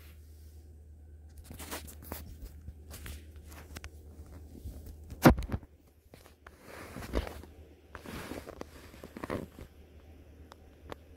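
Cats play-fighting: scuffling and rustling with scattered knocks, the loudest a sharp knock about five seconds in and another about two seconds later, over a steady low hum.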